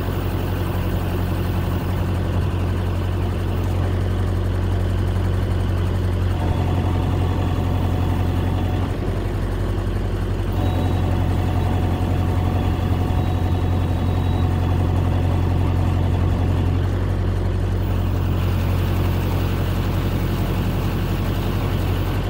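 Mahindra 4540 tractor's diesel engine running steadily while the front loader is worked, with a faint whine that comes and goes as the bucket is raised and lowered.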